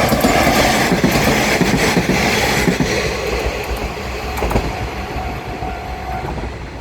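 Diesel railcar running past over a level crossing, its wheels clattering over the rail joints with repeated sharp clicks. The clatter is loudest for the first three seconds, then eases as the train moves away.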